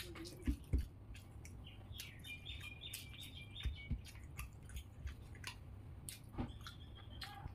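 Close-up chewing and wet mouth clicks of someone eating rice by hand, with two low thumps about half a second in. A bird chirps in the background in two short runs of quick high notes, in the middle and near the end.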